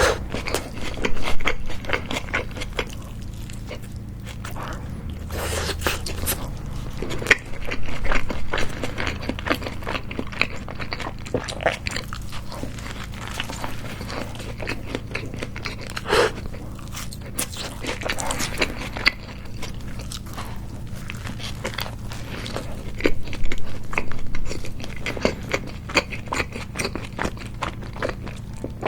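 Close-miked chewing and biting of a homemade hamburger, with crisp crackles from the toasted bun and wet chewing, coming in irregular clusters over a low steady hum.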